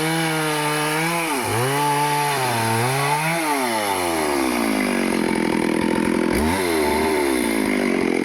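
Stihl chainsaw running at high revs while cutting teak, its pitch dipping sharply and recovering about every two seconds. About four seconds in, the throttle is released and the engine winds down to idle, with one quick rev near the end.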